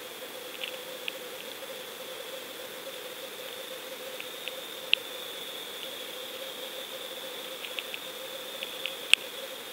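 Underwater sound picked up by a submerged action camera: a steady hum with two constant tones, broken by scattered sharp clicks and ticks, the loudest about five seconds in and another near the end.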